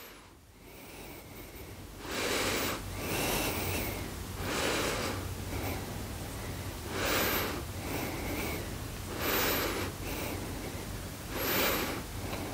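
A woman breathing audibly and evenly, one breath every second or two, starting about two seconds in: the controlled breathing of a yoga practitioner holding a back-bend pose.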